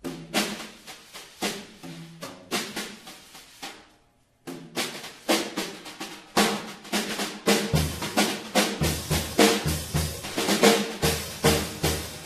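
Drum kit played solo: fast snare and tom strokes, a brief stop about four seconds in, then bass drum beats join and the playing builds up louder.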